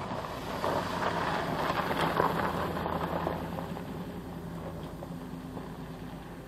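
2001 Dodge Ram 2500's 5.9-litre V8 gas engine running with a steady low hum, and a louder rushing noise between about one and three and a half seconds in.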